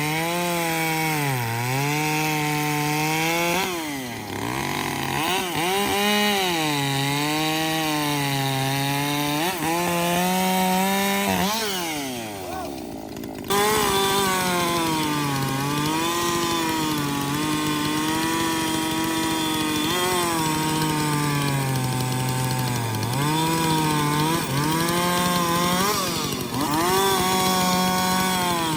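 Two-stroke gasoline chainsaw cutting wood, its engine pitch repeatedly sagging under load and climbing back. About 12 seconds in the engine winds down; a second or so later it is suddenly back at full speed, still cutting.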